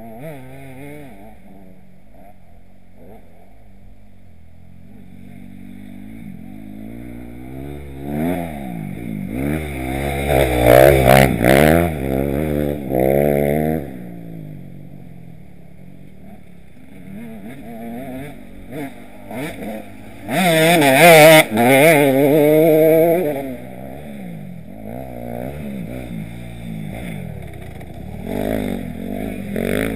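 Motocross dirt bikes running on the track, with engine pitch climbing and dropping as they are revved through the gears. Two bikes pass close and loud, one about a third of the way in and one about two-thirds in, with more distant bikes droning in between.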